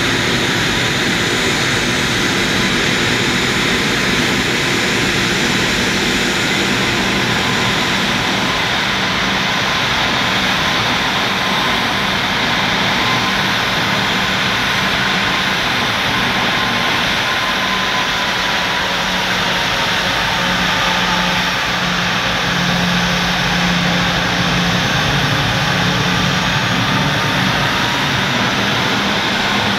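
Bombardier Global 6000's rear-mounted Rolls-Royce BR710 turbofan jet engines running steadily at idle while the jet stands parked. A constant jet roar carries a low hum and a faint high whine that wavers slightly partway through.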